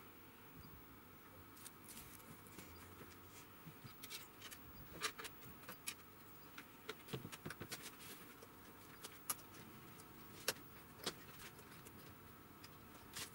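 Faint scattered clicks and taps of hands handling a TV panel's sheet-metal back chassis and backlight strip channel, with a few sharper clicks in the second half.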